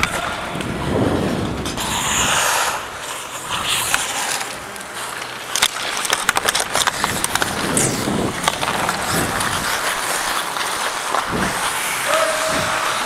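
Ice hockey skates scraping and carving across the ice under a steady rush of noise, with a flurry of sharp clacks of sticks on the ice and puck from about six seconds in.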